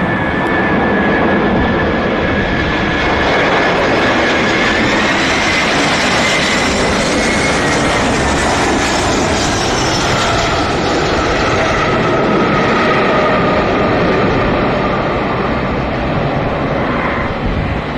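Airbus A321 jet engines passing close by with a loud, steady roar. A high whine rises slightly about five seconds in, then drops in pitch as the airliner goes past.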